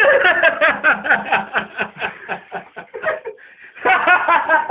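A person laughing hard in rapid, evenly pulsed bursts, a long run of laughter, a short breath, then another run.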